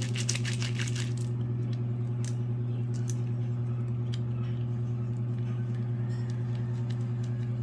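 A steady low hum, with a slight regular pulsing, under a few light clicks and crinkles of a small plastic packet being handled, most of them in the first second.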